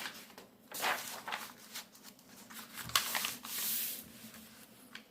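Tabletop handling sounds: paper rustling and sliding, with light clicks and knocks as the coloring book and plastic markers are moved about.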